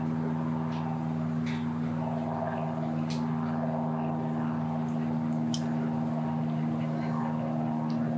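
An engine idling: a steady, even low hum with a few faint ticks over it.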